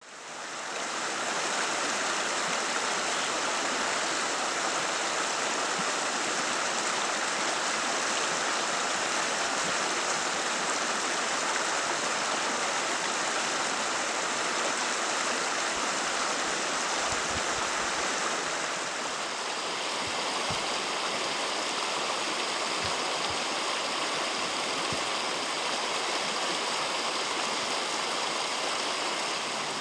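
A rocky stream rushing and splashing: a steady hiss of running water that fades in at the very start and shifts to a slightly softer, different tone about two-thirds of the way through.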